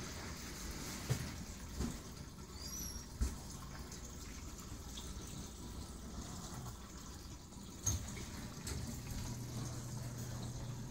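Water trickling and splashing steadily as it drains through a homemade trickle-tower filter into an aquarium sump. A few soft knocks come about one, two, three and eight seconds in.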